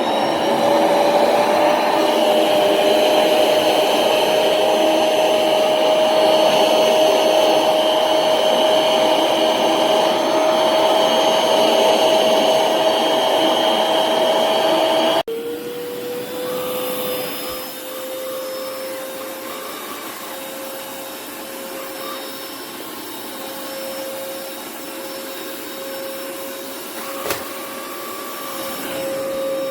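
Cordless stick vacuum motor running with a steady whine. About halfway through it drops abruptly to a quieter, slightly lower whine and keeps running. A brief click comes near the end.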